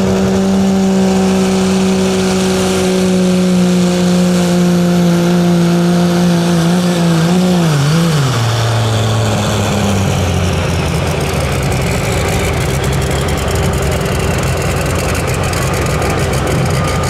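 Pro stock diesel pulling truck, a Dodge Ram, running flat out under load as it pulls the sled. Its engine note is high and steady, sagging slowly, then wavers and drops sharply about eight seconds in as the engine is pulled down, and runs lower and rougher after that.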